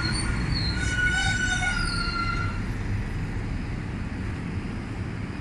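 Road traffic noise along a city street, with a high squeal lasting about two and a half seconds near the start.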